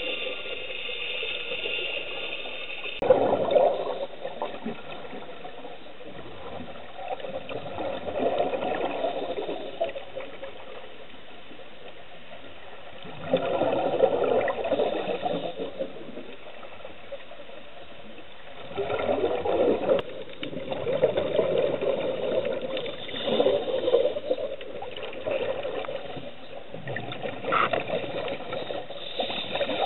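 Scuba regulator bubbles heard underwater: a steady hiss with louder surges of bubbling every few seconds as divers exhale. A steady hum of several high tones runs under it for the first three seconds and then cuts off.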